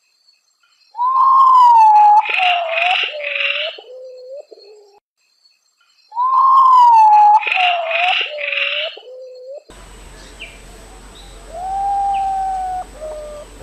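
Common potoo (urutau) singing its mournful song: three phrases of whistled notes, each falling in pitch step by step. The first two are loud, and the last is fainter over a steady hiss.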